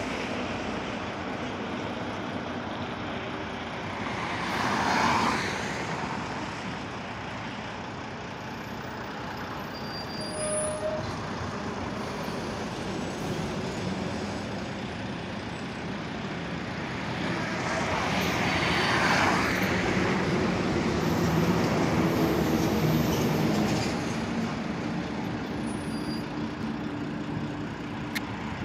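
Road traffic noise with a heavy truck engine running at slow speed. The noise swells twice, about five seconds in and again around nineteen seconds.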